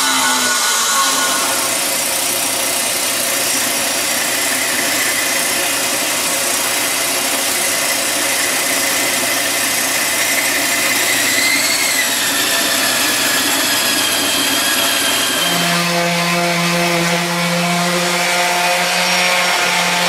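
Bandsaw running and cutting a long notch in a wooden board, a steady machine whine with a brief rise and fall in pitch about twelve seconds in. About sixteen seconds in, the sound changes to a handheld electric sander running with a steady hum.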